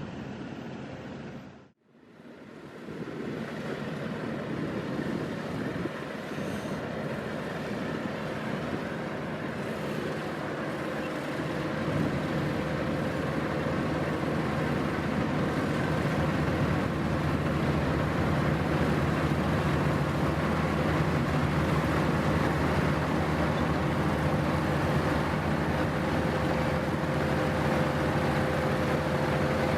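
Mitsubishi VR6108 six-row rice combine harvester running steadily, a machine drone with a low hum. The sound cuts out briefly about two seconds in, then grows louder over the next ten seconds and holds steady.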